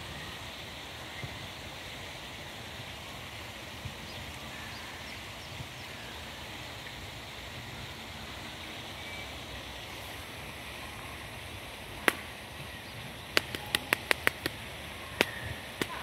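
Steady outdoor background hiss by a woodland pond. About three quarters of the way through come sharp clicks: one on its own, then about six in quick succession, then a couple more.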